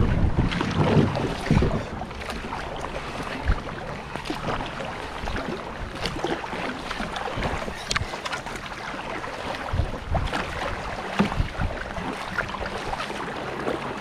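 River water rushing and paddles splashing in irregular strokes as a whitewater boat is paddled downstream, with wind buffeting the microphone.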